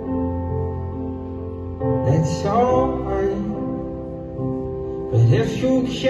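Music: an instrumental stretch of a slow pop ballad, with held chords and a new phrase starting about two seconds in and again near the end.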